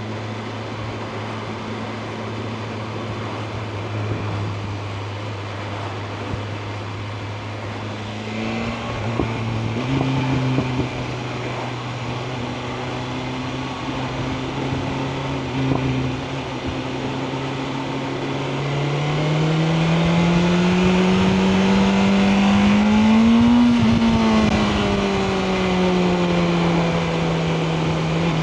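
BMW M1000R Competition's inline-four engine running on the road. The note is steady at first, then steps up in pitch twice in quick succession. After that it rises and grows louder under acceleration to a peak, then falls away as the revs drop.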